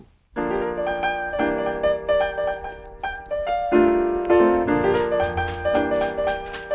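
Piano music, notes and chords played with a steady beat, starting a moment after a brief break.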